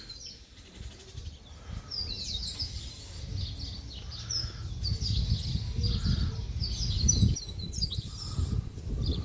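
A dawn chorus of many birds chirping and calling at once: short, quick, overlapping high chirps and little falling notes, over a low rumble.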